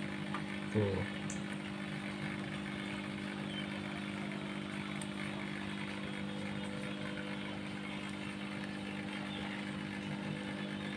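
A steady, low machine hum at one constant pitch.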